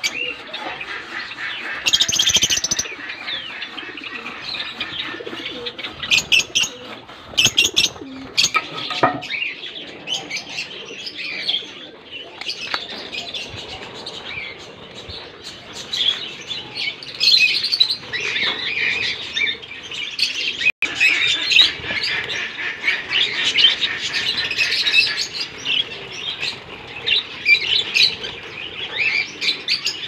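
A flock of budgerigars chattering and chirping nonstop, with occasional wing flutters. The chatter grows busier about halfway through.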